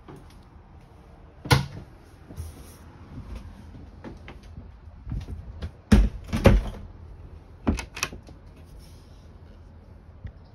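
Caravan cupboard and locker doors being opened and shut: a sharp knock about a second and a half in, then a cluster of knocks and clicks about halfway through.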